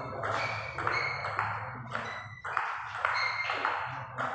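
Table tennis rally: the celluloid ball is hit back and forth by paddles and bounces on the table, a quick run of sharp pings and taps, about two to three a second.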